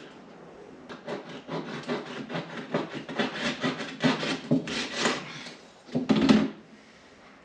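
Rapid hand strokes rubbing and scraping along a ragged edge to clean it up, about four strokes a second, ending in one louder, longer scrape about six seconds in.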